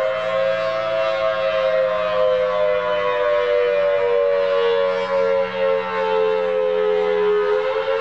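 Federal Signal Thunderbolt outdoor warning siren sounding the wail signal with its horn rotating: a loud, steady two-note tone slowly falling in pitch, then beginning to rise again near the end, the wail that signals danger or attack.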